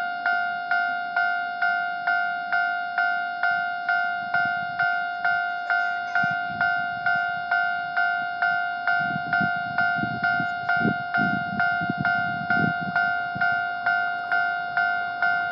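Japanese railway level-crossing warning alarm sounding its repeated 'kan-kan' bell tone, about two strikes a second, while the crossing is closed for a train. A low rumble swells up in the middle.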